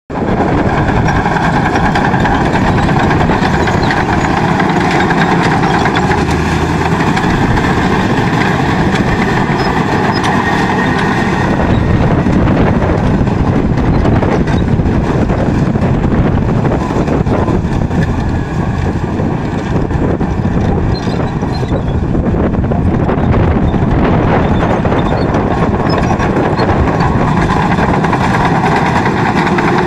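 Komatsu D65PX crawler bulldozer's diesel engine running steadily as it pushes soil, with rapid clattering from its steel tracks. The engine note changes about twelve seconds in.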